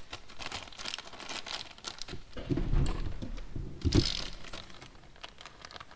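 Small metal gasket washers clinking and plastic parts bags rustling as they are handled and sorted by hand, with a brief low hum in the middle and a sharper click about four seconds in.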